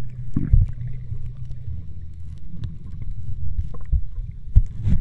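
Muffled underwater sound from a camera held below the surface: a low rumble of water moving against the microphone, with a few dull thumps as the camera and hands move through the water.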